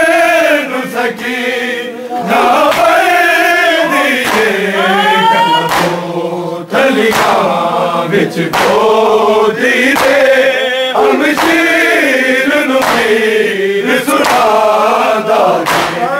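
Group of men chanting a Punjabi noha (Shia mourning lament) together, loud and continuous, with a few brief breaks.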